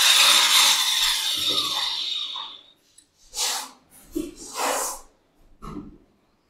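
A power tool used to grind down a plastic mixer trim extension runs on and fades out, stopping about two and a half seconds in. Then come three short breathy puffs.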